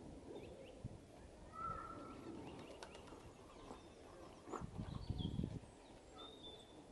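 Small garden songbirds calling: scattered short high chirps and call notes, with a brief whistled note about one and a half seconds in and another near the end. A low rumble rises in the middle.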